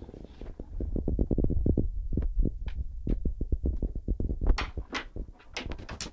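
Rapid low throbbing rumble from a dog and cat tussling at close quarters, loudest in the middle. A few sharper scuffling strokes come near the end.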